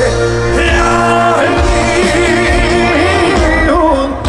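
Male trot singer's voice singing live over band accompaniment, the sung melody wavering with vibrato above a steady bass line.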